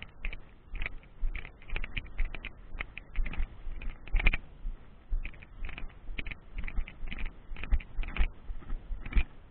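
Footsteps on wet sand, a heavier step about once a second with light clicks and rattles between, stopping near the end.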